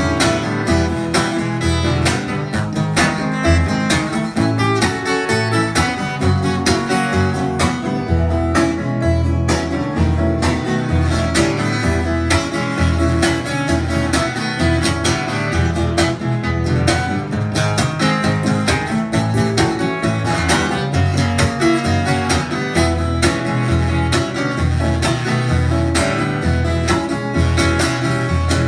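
Solo acoustic guitar playing an instrumental break, with a steady bass rhythm under picked notes.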